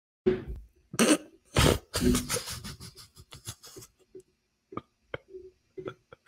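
A man laughing into a close microphone in short breathy bursts, which thin out into a few small clicks near the end.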